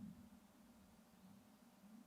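Near silence: faint forest ambience with a low, wavering hum.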